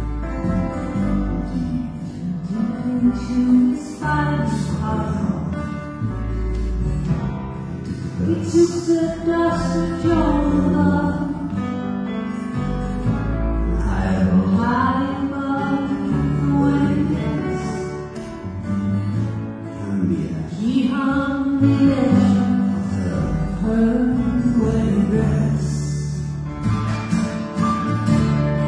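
Live acoustic band playing a slow folk song: acoustic guitars, grand piano and cello.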